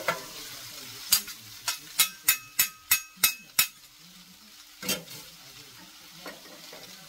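Food sizzling on the hot steel plate of a stainless-steel electric flat-top griddle while it is being seasoned. A metal utensil taps the griddle in a quick run of about eight ringing clinks, starting about a second in, and twice more later.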